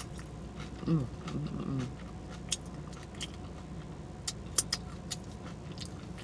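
Close-up mouth sounds of a person eating. About a second in there is a short hummed vocal sound that bends in pitch, followed by scattered sharp, wet smacking clicks from chewing, over a steady low background hum.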